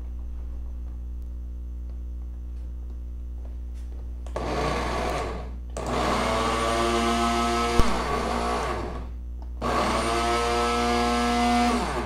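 Philips Walita 550 W blender running with an empty jar, switched on three times: a short run, a longer run of about three seconds, then one of about two seconds. Its motor whine rises as it spins up and falls as it winds down each time. Running empty, it makes a somewhat different noise.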